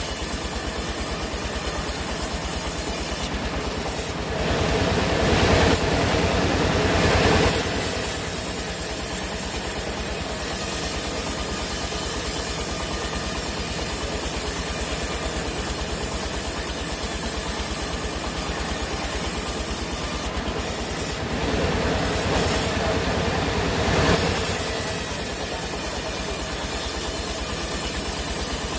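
Sawmill machinery running steadily, with two louder stretches of several seconds each as the saw cuts into the log, the first about four seconds in, the second about twenty-one seconds in.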